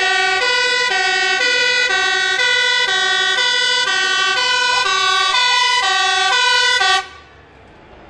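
Scania P370 fire engine's two-tone siren sounding, alternating evenly between a lower and a higher pitch about twice a second. It cuts off suddenly near the end, leaving the quieter sound of the truck.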